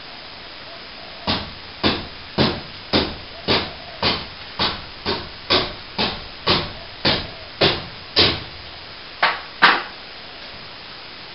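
Hammer blows at a steady pace of about two a second, some sixteen strikes, with a short pause before the last two.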